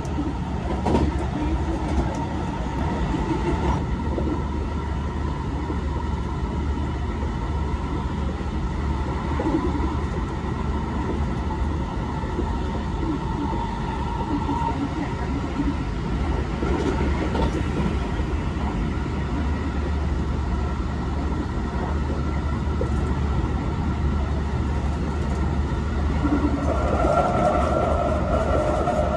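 Running noise heard from inside the cabin of a Hankyu 2300 series electric train at speed: a steady rumble of wheels on rail, with a faint steady whine that grows stronger near the end.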